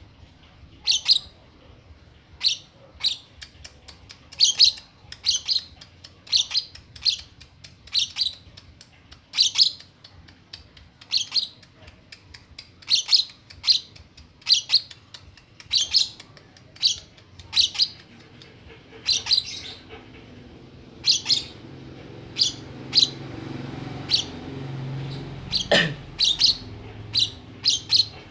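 A young lovebird, about two months old, giving short, sharp chirps about once a second, singly or in quick twos and threes. A low hum swells in the background in the last third, with one falling sweep near the end.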